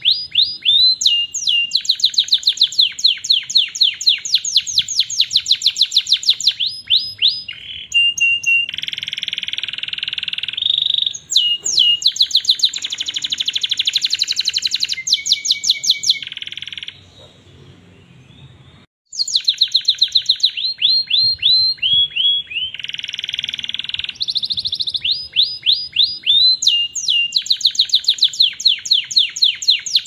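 Domestic canary singing a long song of fast trills and rolls: rapid runs of quick repeated notes, many of them short downward sweeps, with a few held, steadier phrases. The song drops away for about two seconds past the middle, then starts again.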